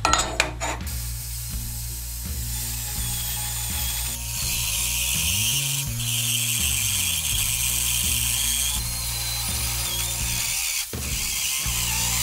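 Electric drill in a drill press stand cutting into a steel plate with an annular cutter, a steady grinding cut with a high wavering whine that grows louder about four seconds in. A few sharp metal clicks at the start as the plate is set down, and background music under it.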